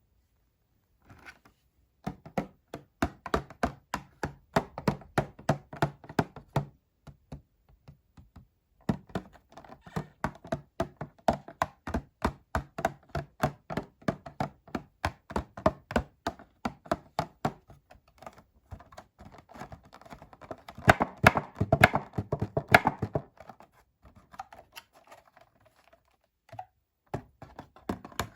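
Rapid tapping and clicking on doll packaging, several taps a second in runs with short pauses, loudest a little past the middle.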